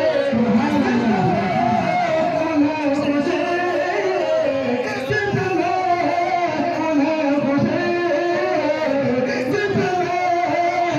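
A man singing solo into a microphone, in long held notes that waver in pitch.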